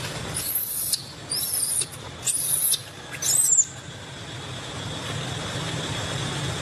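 Baby macaque screaming in distress while trapped in a rock crevice: four shrill, very high-pitched cries of about half a second each, the last wavering in pitch, over a steady low hum; the cries stop about four seconds in.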